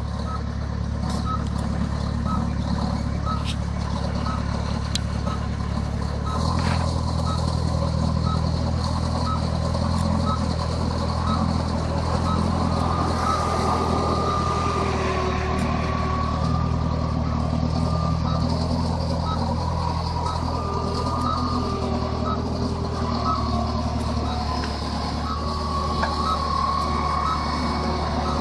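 Princeton Piggyback PB70 truck-mounted forklift's engine running as it manoeuvres with a load of lumber, its engine note stepping up about six seconds in. Its backup alarm beeps about once a second throughout.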